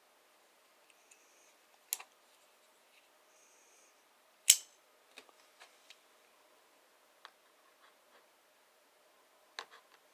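Kershaw Spoke steel folding knife being worked open and shut, its SpeedSafe-assisted blade and liner lock clicking. There are scattered small clicks, one loud sharp snap about four and a half seconds in, and a cluster of clicks near the end.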